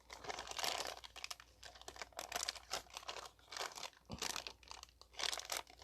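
Packaging crinkling and rustling on and off as a small packaged part is handled.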